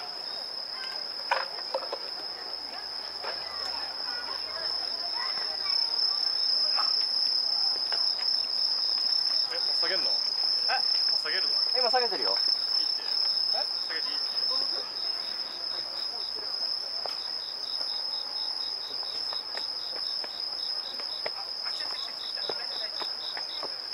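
Night insect chorus: one insect sings a continuous high-pitched trill while another chirps in rapid, even pulses that come and go.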